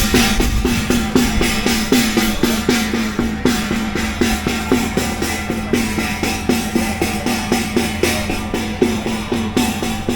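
Music with a fast, steady drumbeat, about five strokes a second, over steady held tones.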